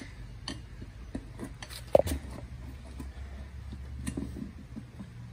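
Screwdrivers prying a small minibike tire's bead off its metal rim: scattered clicks and scrapes of metal on metal and rubber, with one sharp knock about two seconds in, over a low steady hum.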